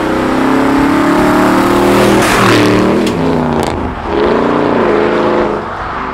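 2014 Toyota Tundra V8 running through a Borla Touring dual cat-back exhaust with Carven R-Series mufflers, a deep exhaust note whose pitch rises and falls a couple of times as the engine is revved or accelerated.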